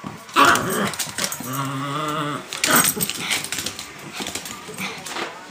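Two dogs, one a puppy, play-fighting, with short sharp barks and a drawn-out growl at about a second and a half in.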